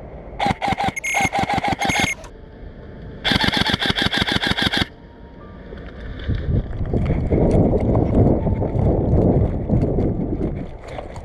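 Airsoft electric rifle firing at close range: short rapid strings of shots for about a second and a half, then a longer full-auto burst of about a second and a half. These are followed by several seconds of low rustling and footfalls as the shooter moves.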